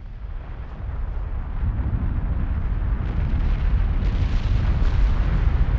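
Volcanic lava fountain erupting: a deep, continuous rumble that swells over the first two seconds and then holds steady, with faint crackling over it.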